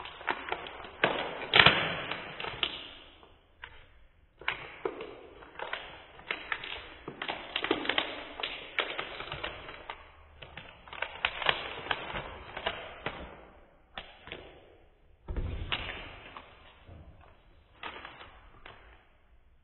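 A shiny plastic pack wrapper crinkling and rustling in irregular bursts as it is handled, with taps and a thump against the wooden table about fifteen seconds in.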